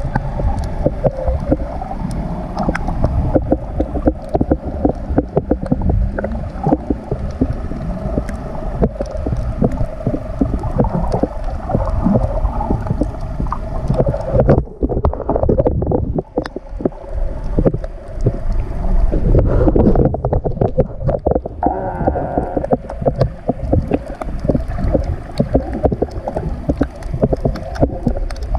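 Muffled underwater sound picked up by a camera held just below the surface while snorkeling: a steady low rumble of moving water with many small crackling clicks and gurgles.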